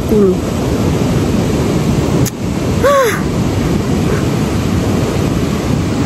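Steady, loud rushing noise. About three seconds in, a sharp click comes just before a brief pitched sound that rises and falls.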